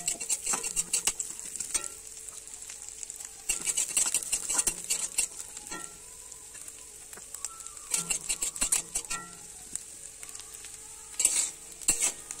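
Chopped coconut pieces sizzling in mustard oil in a metal kadai, with a metal spatula scraping and clinking against the pan in four short spells of stirring and quieter sizzling between them.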